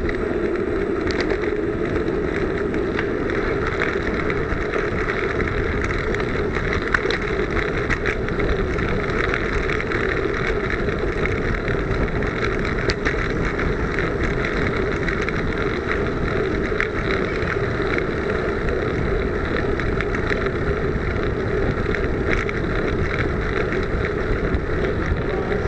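Brompton folding bicycle ridden fast on tarmac, heard through its onboard camera: wind rushing over the microphone with a steady tyre-and-road rumble and occasional small clicks and rattles.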